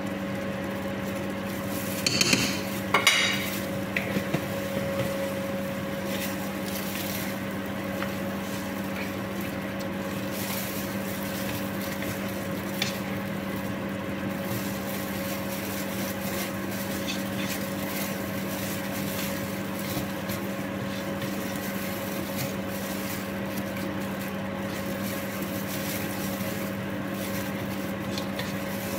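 A metal spoon knocks and clinks against a glass spice jar and a cooking pot a few times about two to four seconds in. After that a wooden spoon stirs and scrapes spiced meat in the pot, with faint scattered knocks, over a steady hum.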